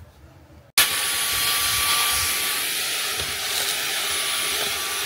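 Cordless handheld vacuum cleaner switched on about a second in, then running steadily with a high whine over its rushing airflow.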